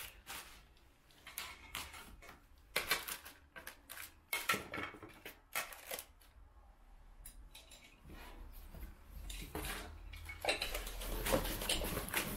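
Hands rummaging in a cardboard box of packed car parts: packing paper and plastic bags rustling, with irregular clinks and knocks as hard parts are handled, busier and louder near the end.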